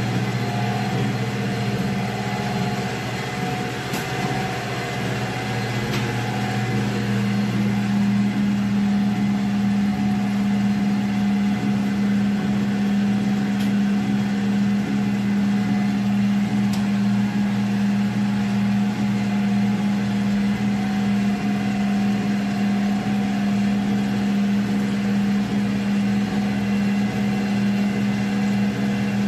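Hydraulic cocoa butter press running under pressure during pressing: its electric motor and hydraulic pump hum steadily, growing a little louder after several seconds, with a few faint ticks.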